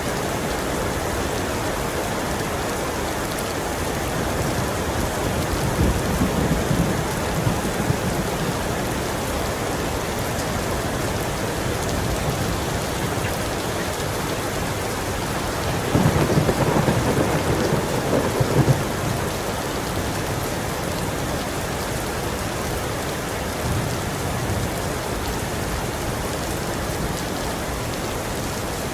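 Heavy rain falling steadily, with rolls of thunder: a low rumble swells about six seconds in, and a louder roll comes just past the middle.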